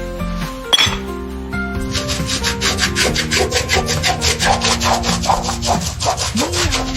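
Quick back-and-forth rubbing or scrubbing strokes on a hard surface, about five a second, over soft background music; a single knock comes just before the strokes start.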